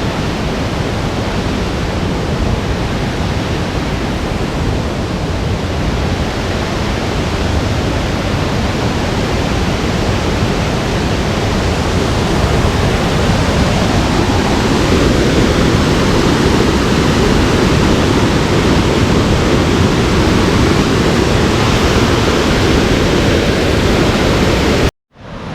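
Waterfall pouring: a loud, steady rush of falling water that grows louder about halfway through and cuts out suddenly just before the end.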